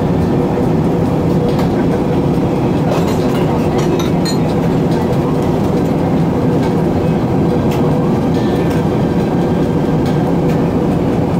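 Airbus A380 cabin noise in flight: a constant rush of air and engine drone with a steady hum, heard from a window seat beside the Rolls-Royce Trent 900 engines, with a few faint ticks.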